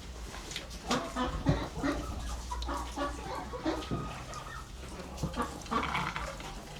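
Chickens clucking, a run of short calls mixed with scattered clicks and knocks.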